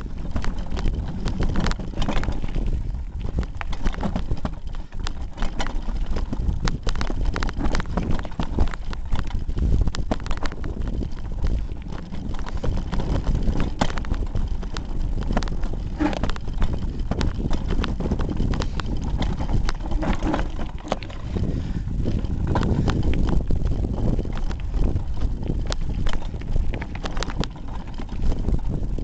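A hardtail mountain bike ridden down rough, rocky singletrack, heard through a camera duct-taped to its handlebars: constant irregular rattling and knocking from the bike and camera as the tyres run over stones, over a steady low rumble.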